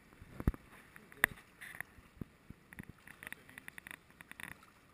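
Water splashing and sloshing in the shallows, with a low thump about half a second in, a sharp knock just after a second, and a run of quick short splashes and clicks in the second half.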